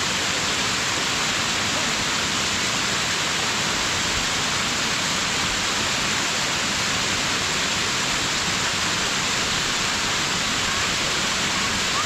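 Small mountain waterfall cascading over rock close by: a steady, unbroken rush of falling water.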